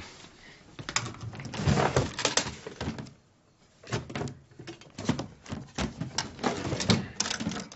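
Irregular knocks, clinks and rubbing of objects being handled, including a metal chalice being rubbed hard with a cloth.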